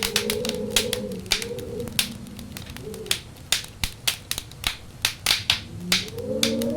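Wood fire crackling with frequent sharp pops, over howling wind whose wavering moan fades out about a second and a half in, comes back briefly around halfway, and swells again near the end.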